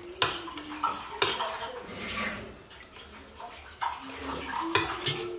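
Steel spoon clinking against a steel plate a few times as someone eats rice, over a steady rushing noise.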